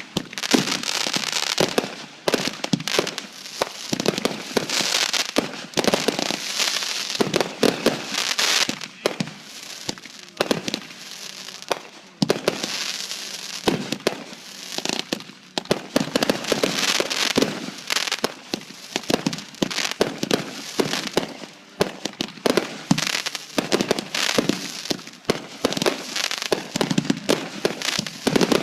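Fireworks going off in quick, overlapping succession: a dense barrage of bangs and crackling that keeps up with only brief lulls.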